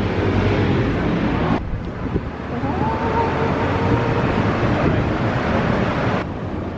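Busy café noise, then after a cut about a second and a half in, city street noise: traffic with wind on the microphone and a faint held whine partway through.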